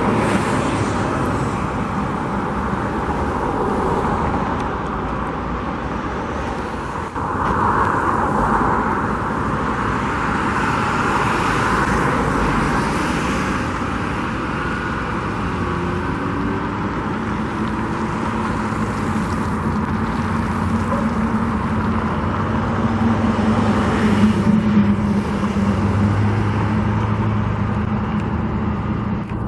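Steady road traffic: cars passing, with an engine hum building and one louder vehicle going by near the end.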